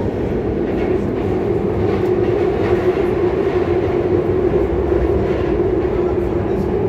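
Ansaldo Breda Serie 7000 metro train running through a tunnel, heard from inside the carriage: a loud steady rumble of wheels on rail with a strong drone and faint scattered clicks.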